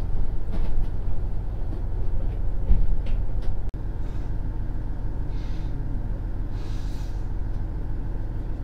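Steady low rumble of a KiHa 110 diesel railcar's engine, heard inside the carriage. The sound breaks off for an instant a little under four seconds in, and two short hisses of air follow in the second half.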